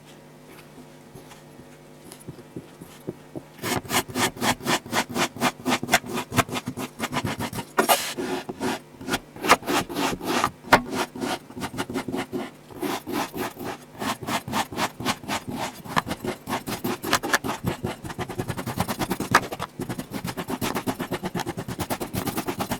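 Kinetic sand being cut or crushed in quick repeated crunching strokes, several a second, starting a few seconds in after a quiet stretch.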